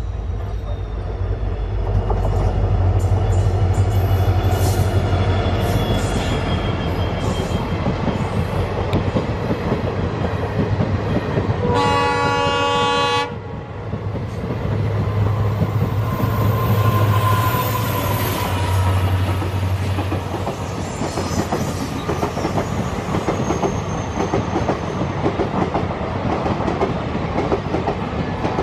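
EMD WDP-4D diesel locomotive's two-stroke engine droning as it hauls a passenger train in, with one horn blast about twelve seconds in lasting about a second and a half. The coaches then roll past with steady wheel clatter.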